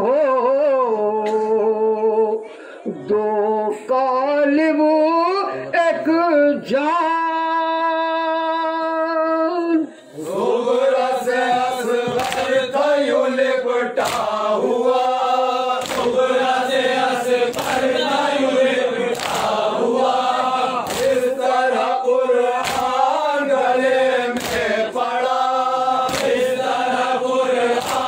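A noha (Urdu mourning lament) sung by a male reciter alone, with one long held note, then taken up by a chorus of men about ten seconds in. Once the chorus starts, a chest-beating (matam) strike lands about once a second, keeping the rhythm.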